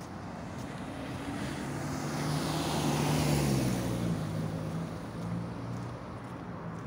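A car driving past, its engine hum and tyre noise swelling to a peak about three seconds in, dropping slightly in pitch and then fading away.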